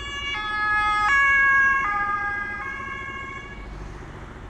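Ambulance's two-tone siren (German Martinshorn), alternating between a higher and a lower note about every three-quarters of a second. It is loudest about a second in, then fades away.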